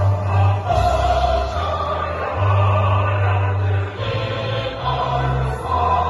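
A choir singing a slow, solemn anthem in long held chords.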